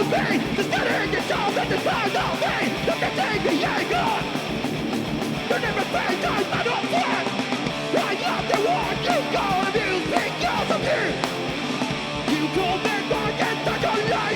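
Live rock band playing at full volume, with distorted electric guitars and steady drum hits; the song kicks in just before this stretch.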